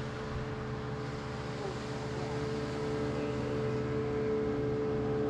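Boat motor running with a steady hum, getting a little louder about three seconds in.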